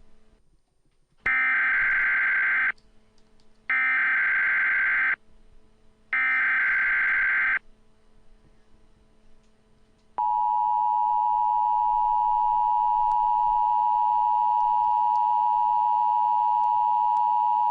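Emergency Alert System tones: three short, harsh SAME header data bursts about a second apart, then, about ten seconds in, the steady two-tone EAS attention signal (853 and 960 Hz) starts and holds.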